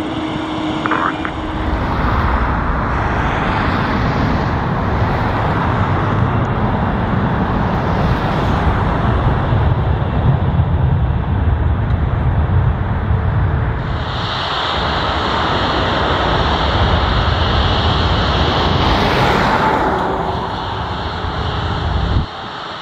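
GEnx-powered Boeing 787 Dreamliner jet engines running at high thrust as the aircraft departs: a loud, steady jet rumble with a deep low end, and a higher whine joining about two-thirds of the way through. The sound drops suddenly near the end.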